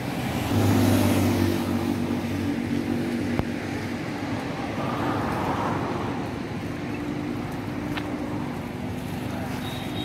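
A motor vehicle's engine running close by, a steady hum that is loudest for the first couple of seconds, over road traffic noise.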